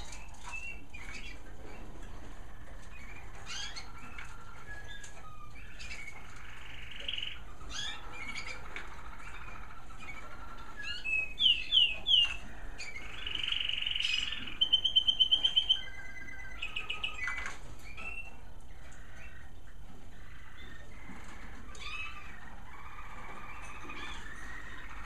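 American Singer canaries singing, with soft warbled phrases throughout. Midway comes a louder passage: three sweeping notes, then a rolling phrase and a fast, even trill.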